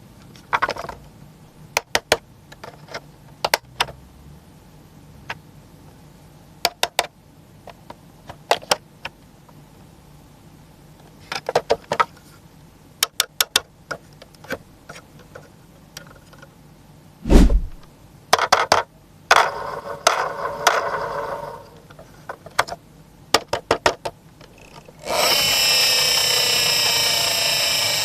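Diecast toy trucks being handled: scattered small clicks and taps of their parts, a heavy thump about 17 seconds in, and some scraping a little after. Near the end, the toy's built-in electronic sound effect plays loudly and steadily for about four seconds.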